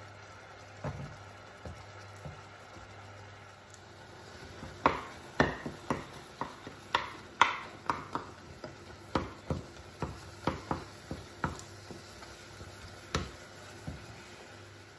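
Wooden spoon knocking and scraping against a metal saucepan while cherry tomatoes are stirred and pressed in hot chicken stock, over a faint sizzle from the pan on high heat. A few faint taps come first, then from about five seconds in a run of sharper knocks, one or two a second, until near the end.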